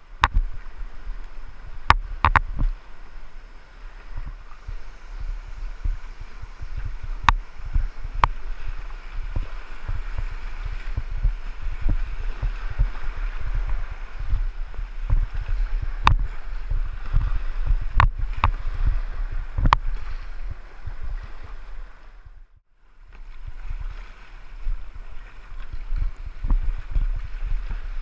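Whitewater rushing around a kayak, picked up by a boat-mounted action camera: a heavy, uneven low thumping of water on the camera, with scattered sharp clicks of paddle strokes and splashes. The sound drops out briefly about three-quarters of the way in.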